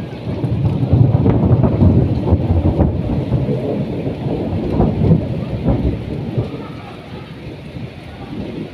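Thunder rumbling over heavy rain, loudest in the first half and dying away over the last few seconds while the rain keeps falling.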